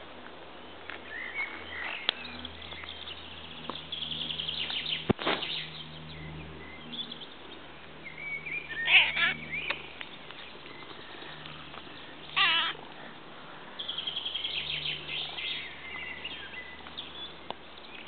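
Siamese-type cats meowing: a long, loud meow about halfway through and a shorter one a few seconds later, with fainter calls between. A sharp click comes about a third of the way in.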